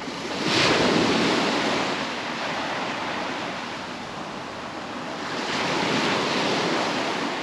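Sea waves breaking and washing up the shore, swelling twice: once about half a second in and again near the end.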